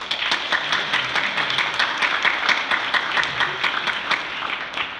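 Church congregation applauding, many hands clapping together; the applause breaks out all at once and dies away near the end.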